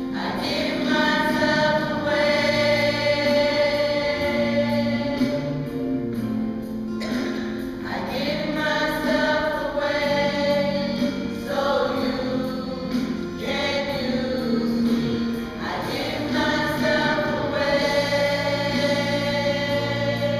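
Women's choir singing together, holding long notes in phrases that change every few seconds.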